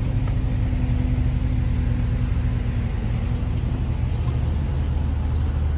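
Steady low machinery rumble with a hum, like a generator or engine running; one hum tone fades out about three and a half seconds in.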